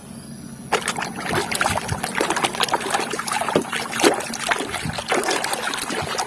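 Water splashing and sloshing as toy vehicles are washed by hand, a busy run of irregular splashes and clicks that starts about a second in.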